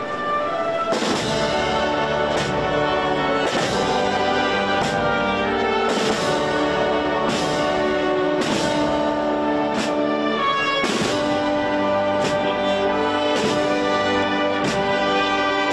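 A Holy Week banda de música (wind band) playing a slow processional march: sustained brass and woodwind chords over evenly spaced percussion strokes, about one every second and a quarter.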